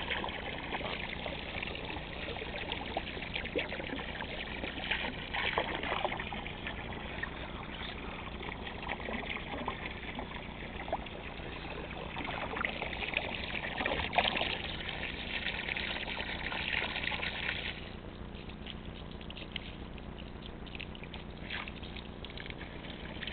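Water running and trickling into a pond as it fills, with small splashes; the higher hiss of the running water drops away about eighteen seconds in.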